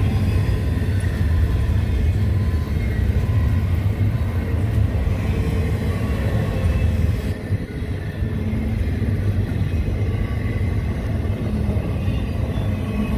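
A train's cars rolling past on the rails with a steady low rumble.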